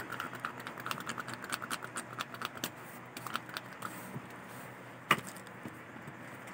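Rapid crackling clicks of tattoo stencil paper being pressed and rubbed onto skin with a gloved hand, dense for the first few seconds, then one sharper snap about five seconds in.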